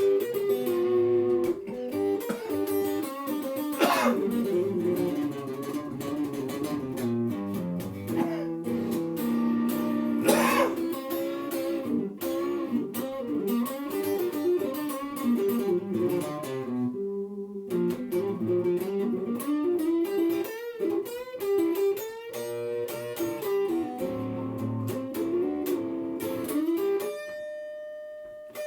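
Blues guitar solo with no singing: single-note lines with string bends and vibrato, ending on a long held note.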